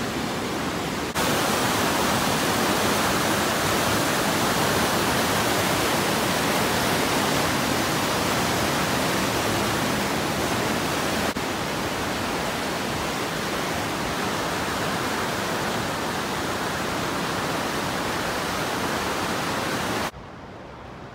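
Fast-moving James River water rushing and churning around concrete piers: a steady, loud rush of water. It steps up about a second in and drops away sharply about a second before the end.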